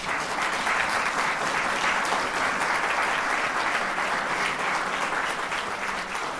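Audience applauding, starting at once and holding steady.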